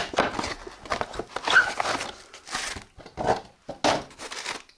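Hands handling a plastic pistol grip and its packaging: irregular rustling with scattered clicks and knocks.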